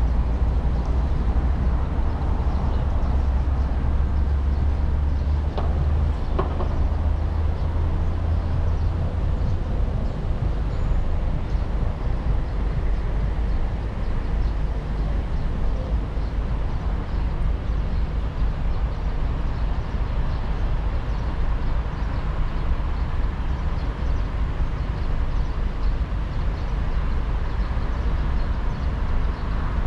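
Steady low rumble of road traffic with cars standing idle, the deepest part easing off about ten seconds in, with a couple of faint clicks about six seconds in.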